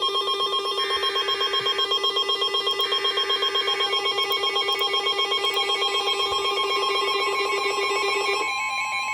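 Emergency Alert System alert tones: a steady two-tone attention signal over a rapidly pulsing lower tone, with two screeching bursts of header data, each about a second long, in the first few seconds. The pulsing tone stops shortly before the end.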